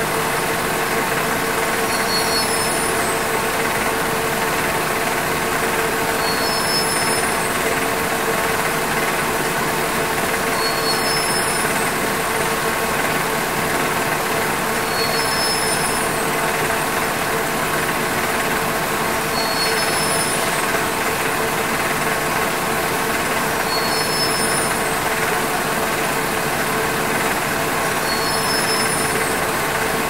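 Textile warping machinery running steadily: a dense, unbroken mechanical din with a faint high chirp repeating about every four and a half seconds.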